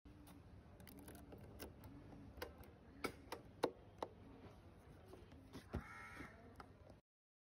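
Faint outdoor ambience: a bird calls over and over, and a louder cawing call comes about six seconds in. A few sharp clicks fall around the middle, from the scooter being handled.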